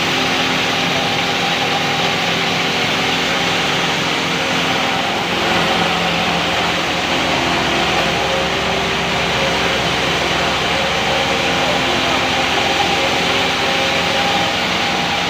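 Automatic feeding machine in a layer hen house running steadily: a constant motor hum with several steady tones over a dense mechanical din.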